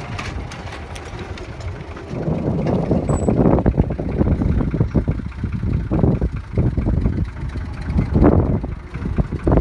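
Tractor engine running while it pulls an old corn planter. It gets louder and rougher about two seconds in.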